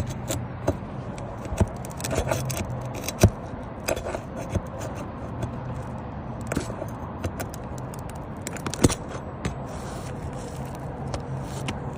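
Asphalt roof shingles being pried and worked loose by hand: scraping with scattered sharp clicks and knocks, the loudest about three seconds in and again near nine seconds.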